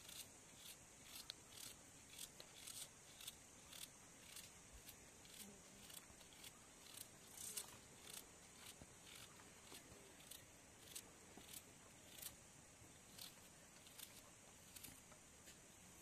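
Knife cutting small pieces from a vegetable held in the hand, faint crisp cuts about one or two a second, over a steady high hiss.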